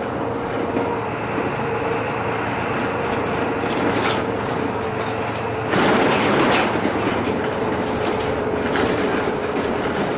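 Inside a city bus on the move: steady engine and road noise with a steady whine, a few rattles, and a louder rush of noise about six seconds in that lasts about a second.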